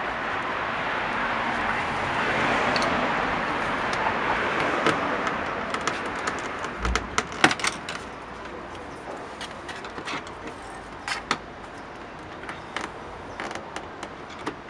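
A screwdriver clicking and scraping against the plastic handle trim and clips of a car's interior door panel, as small sharp taps scattered through the second half. In the first half a broad rushing noise swells and fades.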